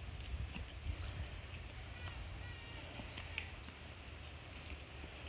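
A bird calling over and over: short, high, upward-sliding chirps about once a second, over a low steady rumble.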